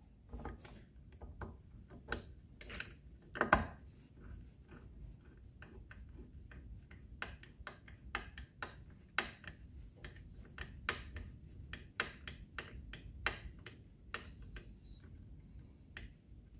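Light, irregular metal clicks and taps of a hand screwdriver turning the ignition coil's mounting screws on a Stihl MS 461 chainsaw, with one louder knock about three and a half seconds in.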